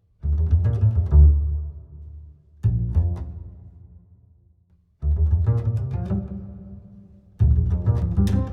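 Background music with a deep bass line, in phrases that start sharply about every two and a half seconds and fade away.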